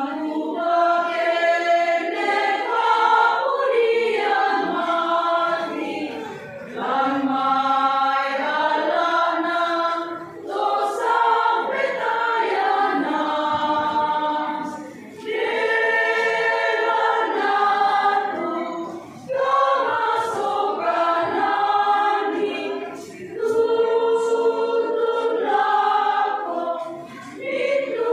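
Women's church choir singing together in phrases of a few seconds, with short breaks between phrases.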